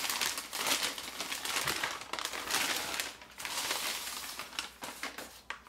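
Brown kraft paper bag rustling and crinkling as it is handled and unwrapped, in a rapid irregular run of crackles.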